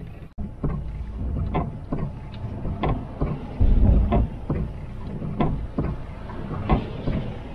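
Inside a vehicle cab on a rainy drive: a steady low rumble of the engine and road, with a sharp click coming about twice a second.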